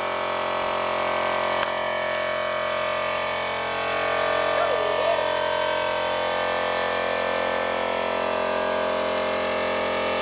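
Air compressor feeding a paint spray gun, running steadily with an even mechanical hum, over a high hiss of air.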